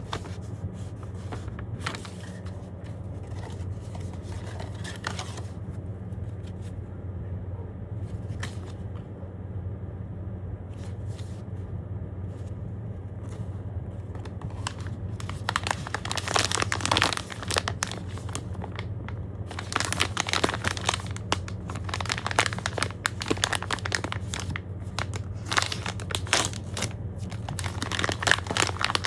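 Packaging of a blind-box collectible figure being handled and torn open: crinkling and rustling of the wrapper, sparse at first and then in louder, busier bouts through the second half. A steady low hum runs underneath.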